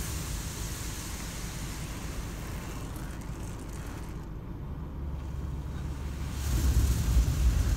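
Automatic car wash heard from inside the car: a steady low rumble of the wash machinery with water spray hissing on the windshield. The spray dies down midway, then the rumble and hiss grow louder again near the end.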